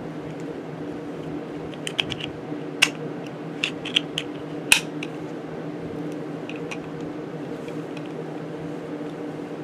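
A series of sharp clicks and taps, clustered about two to five seconds in and fainter later, from objects being handled and set down. Under them runs a steady low hum.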